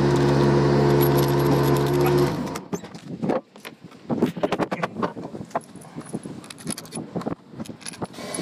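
A loud, steady machine hum with a held pitch cuts off suddenly about two seconds in. After it come small metallic clicks and rattles of a hex nut and washer being spun by hand down a steel bolt set in a wooden plank.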